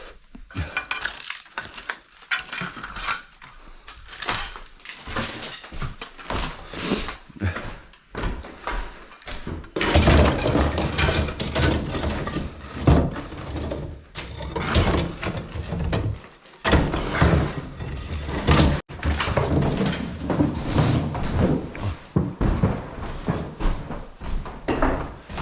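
Broken lath-and-plaster chunks being gathered up and tossed out, making repeated irregular thuds and clattering. It gets busier and heavier about ten seconds in.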